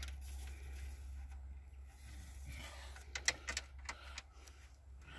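Fresh engine oil pouring from a plastic jug into the engine's filler neck, with a quick run of sharp clicks a little past the middle.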